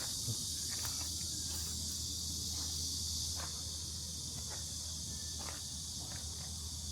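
Yuchai YC4A140L-D25 diesel generator set running steadily inside its soundproof canopy: an even low hum with a steady high hiss over it and a few faint ticks.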